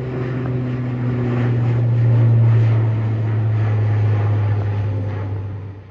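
Propeller airplane flying over, a steady low drone that swells to its loudest about halfway through.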